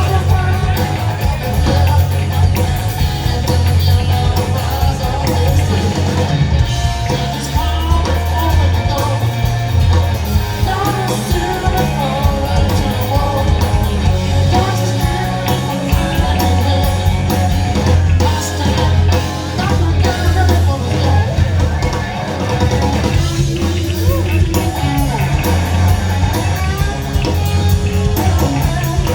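Live blues-rock band playing a slow blues, with electric guitar over bass and drums.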